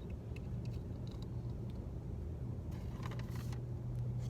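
Steady low hum of a car heard from inside the cabin, with a few short faint clicks or rustles about three seconds in.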